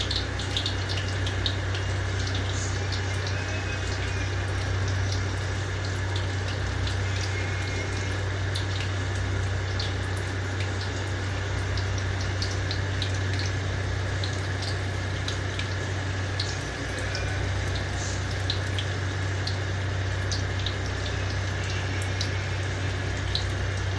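Vegetable fritters deep-frying in a wok of hot oil: a steady bubbling sizzle with scattered small crackles and pops, over a steady low hum.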